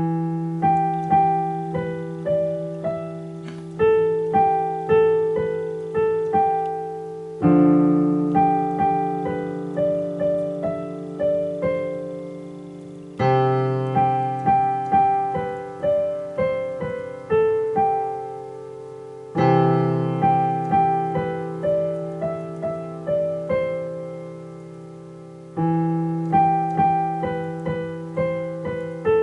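Piano being played: a slow melody of single notes over held bass chords, the chord changing about every six seconds.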